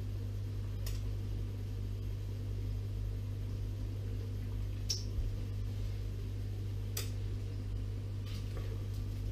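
A steady low hum, with a few faint clicks about a second in, around five seconds and around seven seconds.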